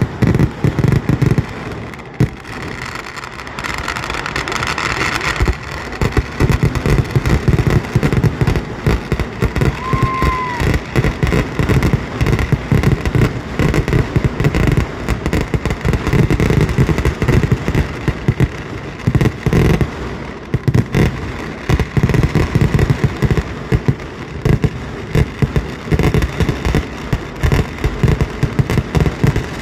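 Kerala temple-festival fireworks: a dense, rapid barrage of explosions going off almost without pause, easing briefly a couple of seconds in before building again. A short whistle rises and falls about a third of the way through.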